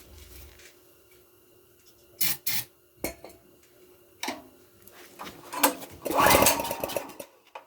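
A few metallic clicks and clanks, then about six seconds in a pull on a portable generator's recoil starter cranks its small engine for about a second, loud and rough, without it catching.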